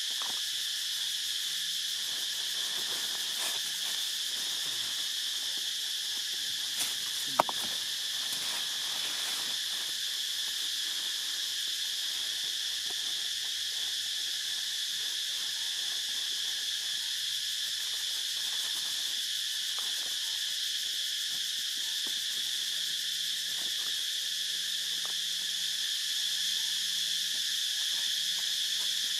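Steady forest insect chorus, a continuous high-pitched drone at an even level, with one sharp click about seven seconds in.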